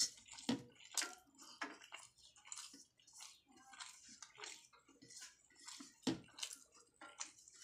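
Eating by hand: a run of short, irregular wet squishes and clicks as fingers gather and press rice and potato against a steel plate, mixed with wet chewing and lip smacks.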